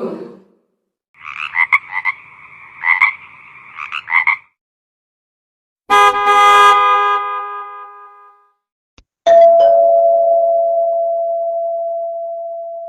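Nokia 1600 mobile phone playing a series of ringtones through its small speaker. First comes a rattling, clicking two-note trill for about three seconds. After a pause comes a bright chime that fades over about two seconds, and then a single long tone that starts about nine seconds in and dies away slowly.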